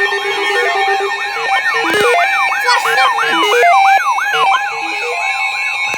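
An electronic siren yelping: a fast rising-and-falling wail repeating about three times a second, with lower stepped beeping tones and a steady high tone underneath.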